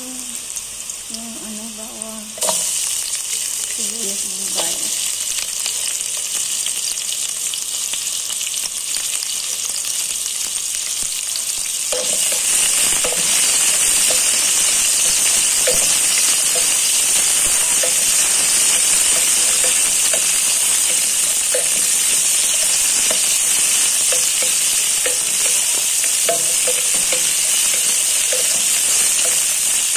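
Garlic and sliced red onions sizzling in oil in a steel pot as they are sautéed, stirred with a wooden spatula that taps and scrapes against the pot. The sizzle grows louder a couple of seconds in and again about twelve seconds in.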